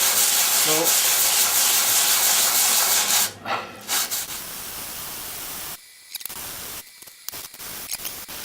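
Cast-iron base plate of a tenon jig being rubbed back and forth on an abrasive flattening plate to lap it flat: a loud scraping hiss for about three seconds, then a quieter steady hiss with a few short breaks.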